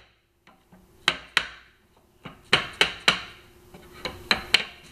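Mallet tapping on a wooden block to seat a wooden lattice panel into a sliding-door frame: about eight sharp wooden taps in three short groups.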